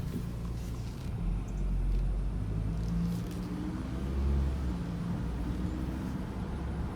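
Volvo XC90's 2.5-litre turbocharged five-cylinder engine and exhaust on a test drive, the engine note swelling and rising in pitch a couple of times as it pulls. The exhaust has newly fitted replacement catalytic converters and still a small leak from a hole in the old resonator.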